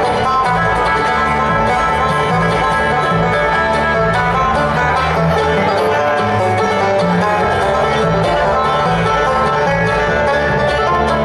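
Live bluegrass band music with a five-string banjo picking out a lead over guitar and bass backing, steady and continuous.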